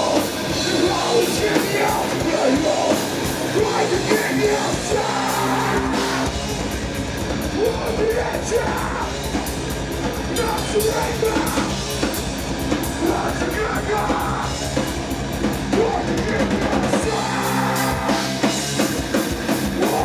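Live heavy metal band playing loud: distorted electric guitars, bass and a drum kit, with shouted vocals. Through the middle the band settles into held low notes under rapid, even cymbal strokes.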